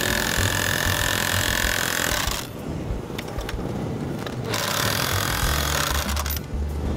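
Power drill with a socket running a nut down the threaded rod of a steel crossarm clamp, tightening it against the wood. It runs with a steady whine for about two seconds, stops, then runs again for about two seconds near the end.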